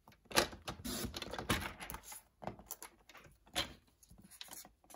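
Sliding-blade paper trimmer cutting white card stock: the cutter is run along its track and the card is shifted, giving several irregular scraping strokes and clicks.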